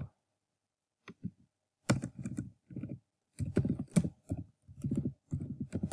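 Typing on a computer keyboard: a run of uneven keystrokes that starts about a second in and keeps going.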